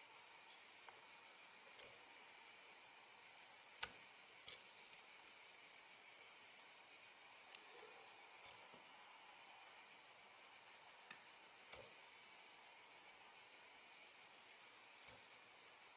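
Crickets chirping continuously in a steady high trill, with a few faint clicks, the loudest about four seconds in.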